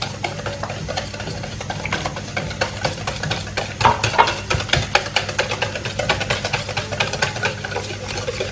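Wire whisk beating thin, milky cake batter in a stainless steel bowl: rapid clicking and scraping of the wires against the metal, several strokes a second, with a few louder strikes about four seconds in.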